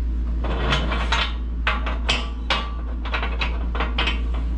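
Steel deck and support pins of a Harbor Freight 20-ton H-frame shop press clanking as the deck is lifted by hand and moved up a peg position: a quick, uneven run of sharp metal clanks and clinks, about a dozen in all.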